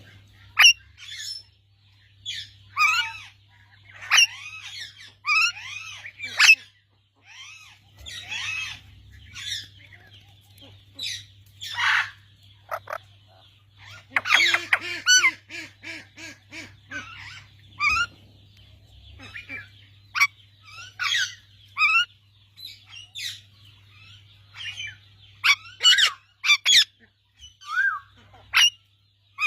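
A parrot calling in a rapid, irregular string of short squawks, chirps and whistles that slide up and down in pitch, with brief pauses between runs, over a low steady hum.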